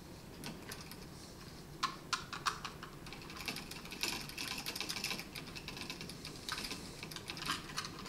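Faint, light clicking and scraping of a screwdriver and stiff electrical wires being worked at a smart light switch's screw terminals in a wall switch box. A few separate clicks come about two seconds in, then a denser run of clicking.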